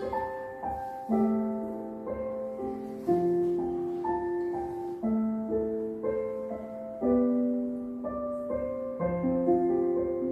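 Slow piano music with no voice: single notes and chords struck and left to ring, changing about once a second, over a soft low pulse.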